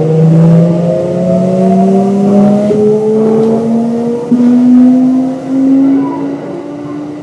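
Hitachi GTO-VVVF inverter of a Kintetsu 1026 series electric train whining as the train accelerates. Several tones climb together in pitch and jump in steps a few times as the inverter's switching pattern changes. They fade about six seconds in.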